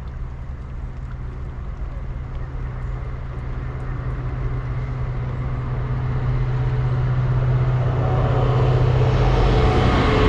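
Narrowboat's diesel engine running with a steady low hum, while a passing train's rushing noise grows steadily louder over the last few seconds.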